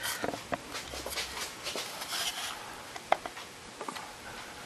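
Scattered light metallic clicks and scrapes from handling a piston and a ratchet-tightened ring compressor over an engine block's cylinder bore, with a sharper click about three seconds in.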